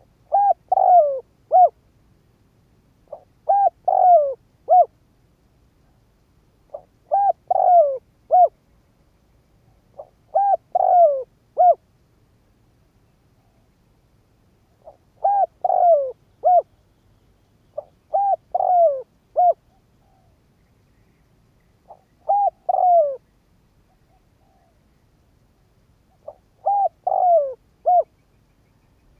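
Spotted dove cooing: eight short phrases, each of three or four falling coos, spaced a few seconds apart.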